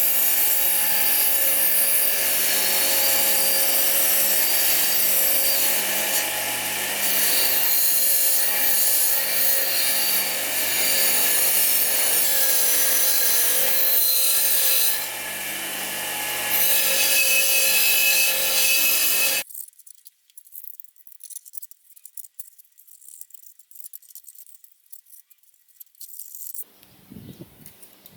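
A power tool running steadily with a constant hum, dipping briefly about fifteen seconds in, then cutting off suddenly about two-thirds of the way through; after that only faint clicks and taps of parts being handled.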